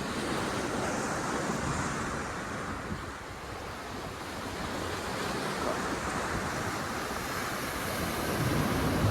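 Sea surf breaking and washing up the beach, a steady rush with wind buffeting the microphone. It eases about three seconds in and builds again toward the end.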